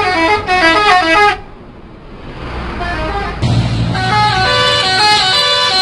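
Indonesian bus 'telolet' horn playing a fast tune of stepped notes, cutting off about a second in. After a quieter gap and a brief low hum, the horn tune starts again about four seconds in.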